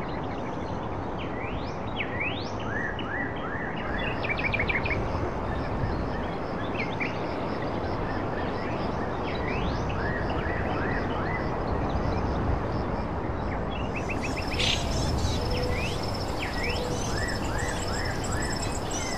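Small birds chirping outdoors, with short upward-sweeping calls repeated in quick runs, over a steady background hiss. About fourteen seconds in, a high continuous trill joins.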